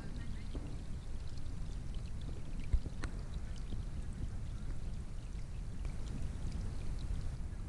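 Scattered raindrops falling on the surface of a pond, heard as light ticks and plinks over a steady low rumble, with one sharper tick about three seconds in.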